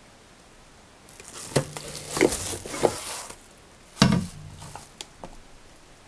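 Plastic wrapping crinkling and rustling as a wrapped stainless-steel thermal carafe is slid out of a filter coffee machine, with several sharp knocks of the carafe against the machine. The loudest knock comes about four seconds in, followed by a couple of light ticks.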